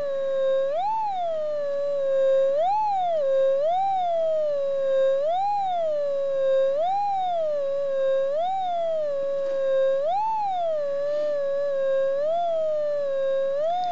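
Ground-balancing pulse induction metal detector's steady threshold tone, its pitch rising briefly and falling back about nine times, once each time the coil sweeps over a 14 gram gold nugget buried about 4 inches deep: the detector's target signal.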